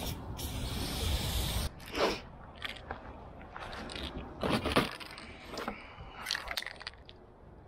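Aerosol spray paint can with a fat cap spraying, a steady hiss that stops about a second and a half in. Then comes a run of crunching and scraping sounds, loudest about two seconds in and around the middle.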